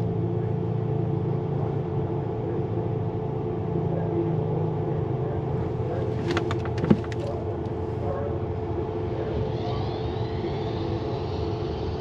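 Steady low rumble of vehicles running at a drag strip, heard from inside a car cabin. A short run of sharp clicks ends in one loud knock about seven seconds in, and a faint rising whine builds near the end.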